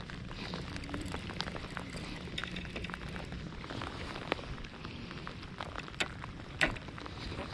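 Rain falling, with drops tapping irregularly on a rain jacket close to the microphone and a few sharper clicks about four, six and six and a half seconds in.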